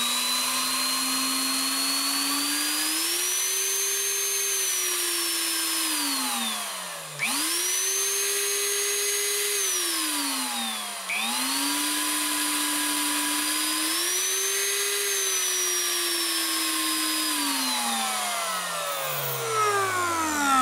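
Harbor Freight Drill Master 2-horsepower fixed base router motor running through a speed control, its pitch rising and falling as the speed knob is turned up and down, about three times over. It slows to a low speed near the end.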